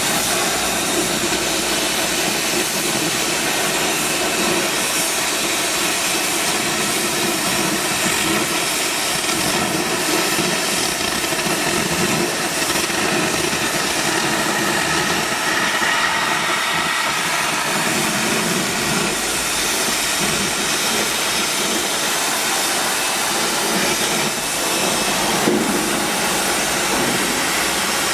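Oxy-fuel cutting torch on a CNC gantry cutter blowing a steady, loud hiss as it cuts through steel plate.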